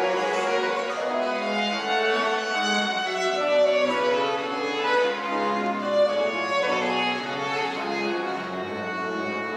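Baroque chamber ensemble playing an instrumental passage: a violin leads over bowed bass strings and continuo.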